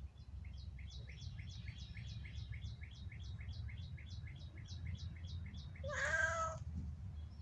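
A cat meows once, a drawn-out cry about six seconds in that is the loudest sound. Before it a bird gives a rapid run of falling chirps, about four a second, for around five seconds, over a steady low rumble.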